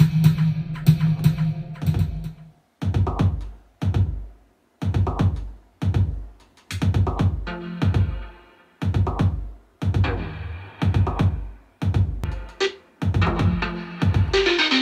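Electronic drum-machine beat being built in Ableton: a busy pattern of quick hits over a held low bass tone, then a deep bass-drum hit about once a second with short gaps between. Near the end a fuller, brighter layer comes in.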